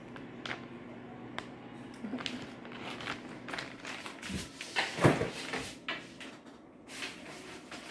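Kitchen handling noises: scattered clicks and knocks with some rustling, and a heavier thump about five seconds in.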